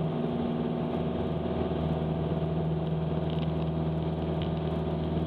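Piper PA-28 Warrior's four-cylinder Lycoming engine running steadily at full takeoff power, heard inside the cockpit as the plane accelerates down the runway on its takeoff roll.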